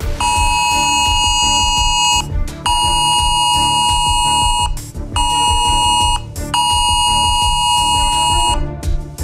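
Android phone's cell broadcast emergency alert tone: a loud, harsh two-pitch electronic alarm sounding in four blasts with short breaks (long, long, short, long), stopping shortly before the end. It is the warning signal of a government test alert.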